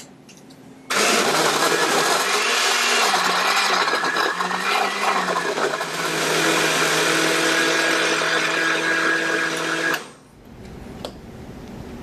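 A Hamilton Beach Power Elite countertop blender with a glass jar starts about a second in and runs loudly, blending frozen strawberries and liquid. The motor pitch dips and recovers a few times while the frozen fruit is chopped, then holds steady as the mix turns smooth. It cuts off suddenly near the end.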